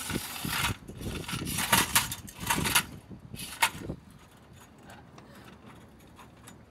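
Small wheeled sumo robot rattling and scuffing over asphalt as it turns, with several sharp knocks in the first three seconds, dying down after about four seconds.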